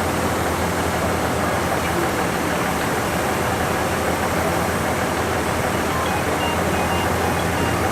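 Steady rushing noise with a low hum from a JR Central 383 series railcar's running equipment while its body is tilted over to the other side. A few faint short high tones sound about six to seven seconds in.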